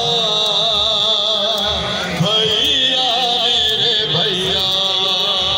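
A man chanting a noha, a mourning lament, in a slow melody with long, wavering notes and a steady high edge to the sound.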